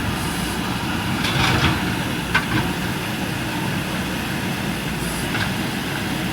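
JCB 3DX backhoe loader's diesel engine running steadily, with a few short sharp knocks from the machine at work.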